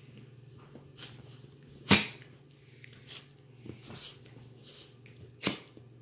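Two dogs play-fighting: a string of short, sharp dog sounds, the loudest about two seconds in and another strong one near the end.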